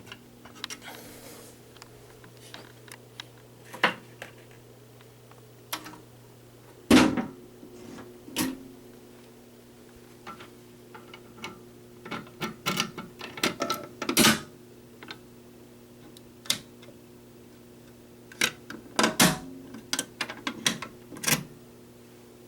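Irregular clicks and knocks, a loud knock about seven seconds in and clusters of quicker clicks later, over a steady low electrical hum.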